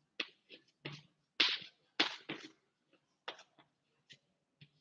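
Chalk writing on a blackboard: about ten short, irregularly spaced taps and scratches of the chalk stick against the board.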